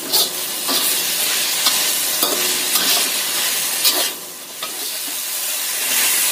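Sauce-coated chicken sizzling in a hot wok while a spatula stirs and scrapes it round, its strokes giving frequent short scrapes and clacks over the frying hiss. The sizzle dips for a moment about four seconds in, then comes back louder.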